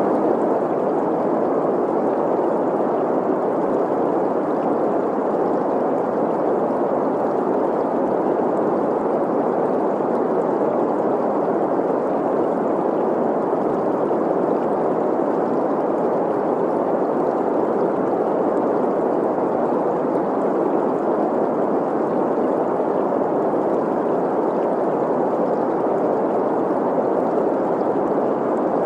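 Steady green noise, an even rushing hiss centred in the middle range, blended with the sound of a flowing stream.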